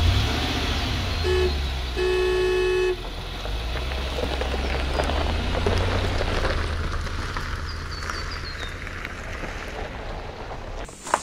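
Van engine running steadily with two horn toots, a short one about a second in and a longer one from about two to three seconds in; the engine cuts out near the end. A few brief high chirps come in about eight seconds in.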